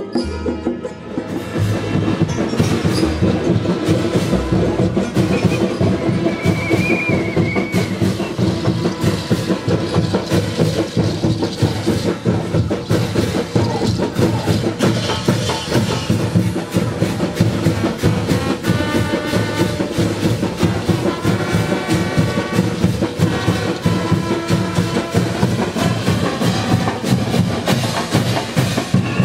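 Brass band with drums playing a driving, steady-beat street tune, with a new piece starting about a second in.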